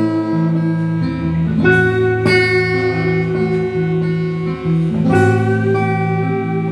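Live band playing an instrumental passage with no singing: acoustic guitar with banjo and drums. Chords ring on, with fresh strums about two seconds and five seconds in.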